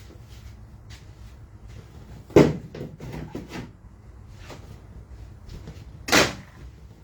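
Two loud knocks, about four seconds apart, each ringing on briefly.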